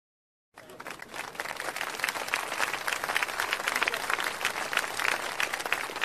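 Crowd applauding: dense, irregular clapping that starts about half a second in, swells over the next second or so and then holds steady.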